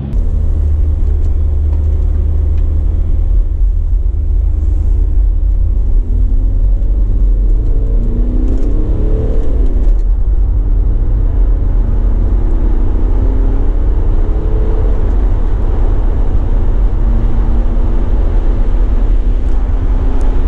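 Audi A4 TDI diesel car heard from inside the cabin on the move: a loud, steady low road-and-engine rumble. The engine note climbs as the car accelerates, drops at a gear change about ten seconds in, then climbs again.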